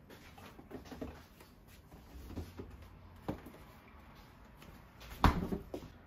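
Bottles and a paper drink carton being handled at an open refrigerator door pocket, with scattered knocks and light clinks about a second apart, then one louder thud a little over five seconds in.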